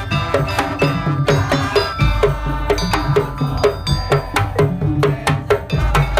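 Madurese ul daul (tongtong) ensemble playing: wooden slit drums and drums beat a fast, even rhythm under a pitched melody.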